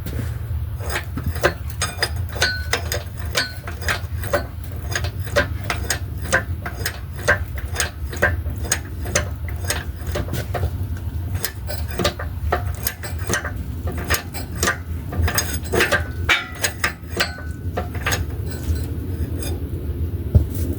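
Irregular metallic clicking and clinking, several a second, from hand tools and steel parts being worked on during the transmission fitting, over a steady low hum.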